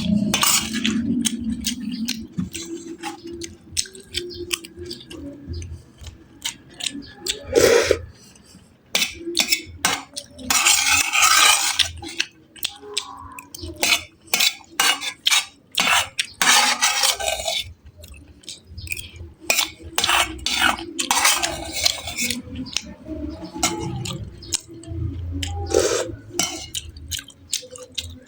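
Cutlery clinking and scraping against a plate while eating: irregular short clicks throughout, with a longer scraping patch about ten seconds in.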